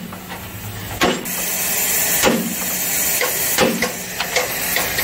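Metal workshop noise: a steady hiss with a low hum in the first second, and sharp metal knocks about every second and a half.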